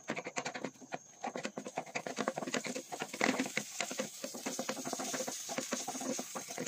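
Pieces of raw chicken fat crackling and sizzling in a hot non-stick frying pan as they begin to render down into frying fat. The crackle grows denser and hissier from about two seconds in.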